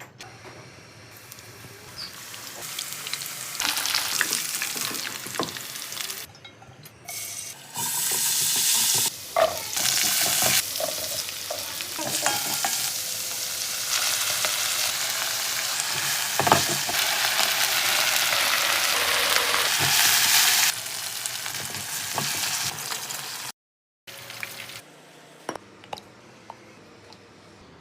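Food sizzling in hot oil in a pan, with the clicks and scrapes of stirring. The sound starts and stops abruptly several times, with one brief total silence about three-quarters of the way through.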